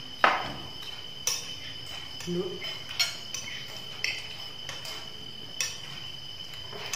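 Metal spoons clinking and scraping against ceramic plates while eating. A sharp clink about a quarter second in is the loudest, and a few lighter ones follow roughly a second or so apart.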